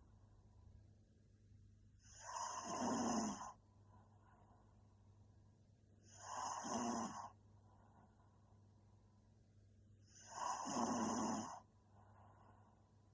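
A young woman snoring in her sleep: three snores about four seconds apart, each lasting a little over a second, with quiet pauses between.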